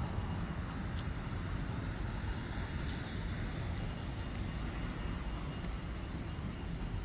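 Steady low rumble of road traffic in a city street, with a few faint clicks.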